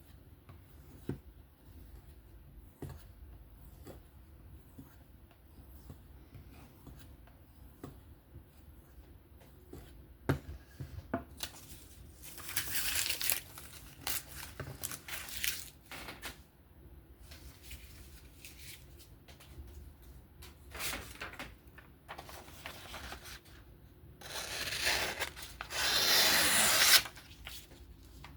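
Handling ticks, then a steel knife blade rasping in several scraping strokes, the longest and loudest near the end.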